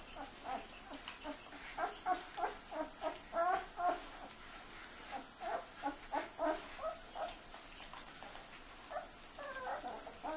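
Thirteen-day-old puppies squeaking and whimpering in quick series of short high calls, with a longer wavering whine near the end, while their mother licks them.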